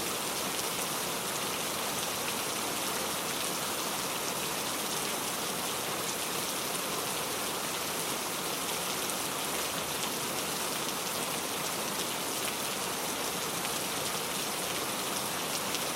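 Heavy rain falling steadily on a hard surface, a dense hiss filled with fine drop ticks.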